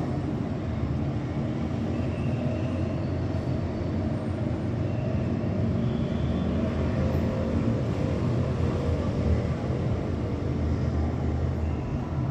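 Distant thunder rolling as a continuous low rumble that slowly swells and eases off again.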